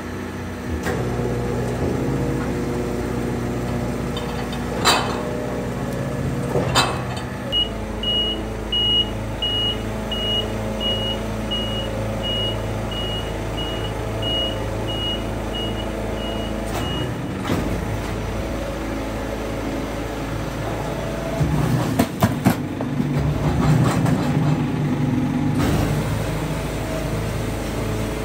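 Rotary-plate garbage truck running its packer, with a steady engine and hydraulic drone, a couple of sharp metal knocks, and a high warning beep repeating just under twice a second for about ten seconds. Later the rotating plate sweeps the load of school bags into the body, with a few seconds of clanking and rattling.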